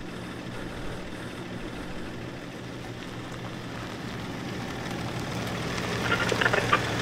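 Van engine running, heard from inside the cabin as a steady low hum that slowly grows louder. Near the end, short sharper sounds come in over it.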